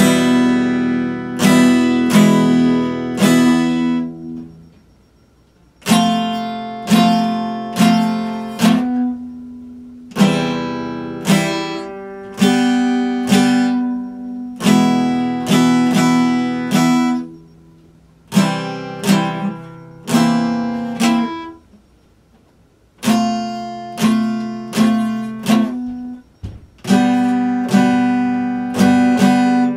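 Acoustic guitar played solo: chords struck one after another and left to ring and fade, in short phrases broken by a few brief pauses.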